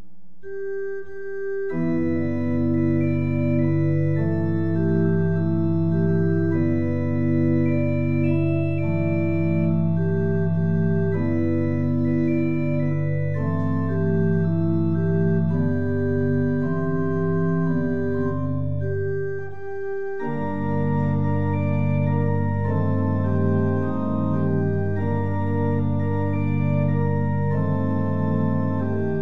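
Church organ playing a slow piece in sustained chords over a held bass note. The chords change every second or so, with a brief break about twenty seconds in before the music resumes.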